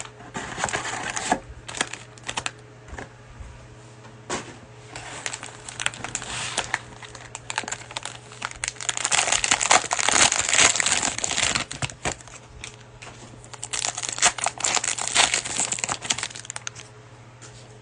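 Plastic cello-pack wrapper of a basketball trading card pack being torn open and crinkled in the hands, in irregular crackling bursts with sharp little clicks, loudest in two longer stretches in the middle and near the end.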